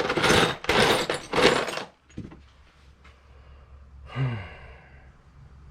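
Loose metal bolts rattling and clattering in a parts bin as it is dug through, in several loud bursts over the first two seconds. About four seconds in, a short falling voiced sound, like a sigh or grunt.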